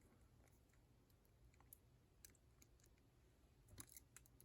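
Faint, scattered clicks of a lock pick and tension tool being worked into the tight keyway of a Master Lock 7050 padlock, with a small cluster of clicks near the end.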